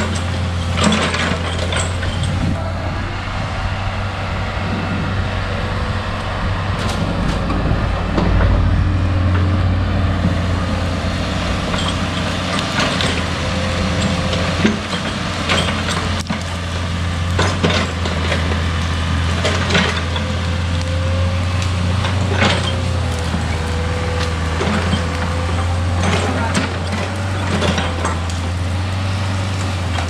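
Komatsu PC40 mini excavator's diesel engine running steadily under work, with a whine that wavers in pitch, clearest in the second half, and scattered sharp knocks and cracks as it digs out tree stumps and roots.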